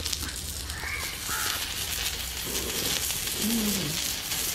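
Giant freshwater prawn sizzling on a hot flat iron pan over a crackling wood fire, a steady hiss with small pops. A crow caws a couple of times about a second in.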